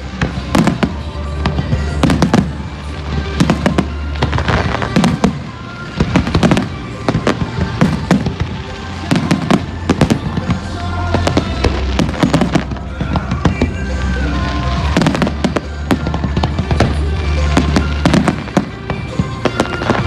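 Aerial fireworks shells bursting in rapid succession, a dense run of sharp bangs and crackles, with music playing alongside.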